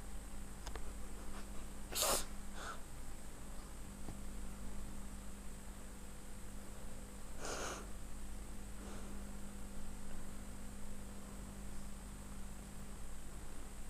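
Two short, sneeze-like puffs about five seconds apart, each followed by a fainter one, plausibly the cockatiel sneezing. A steady electrical hum runs underneath.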